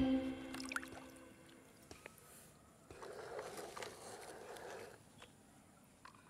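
Faint swishing of shallow water around a plastic toy crane truck, with a few light plastic clicks; the water sound swells briefly in the middle.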